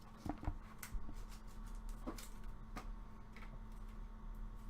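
Baseball trading cards and their plastic holders being handled, giving a few light, scattered clicks and taps over a faint steady hum.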